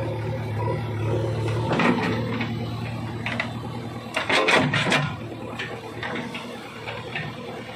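JCB 3DX backhoe loader's diesel engine running with a steady low drone. A knock comes about two seconds in, and a quick cluster of clattering knocks between four and five seconds in.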